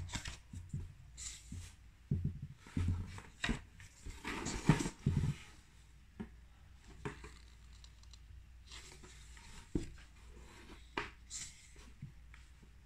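Pages of a bound sketchbook turned and pressed flat by hand: paper rustling and flapping with soft thumps of the book being handled. The handling is busiest over the first few seconds, goes quieter for a couple of seconds, then a few more rustles come near the end.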